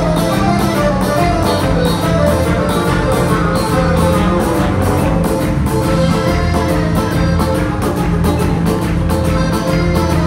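Live band playing an instrumental passage: strummed plucked strings over sustained bass notes, with drums keeping a quick, steady beat. Heard loud through the hall's PA from the audience.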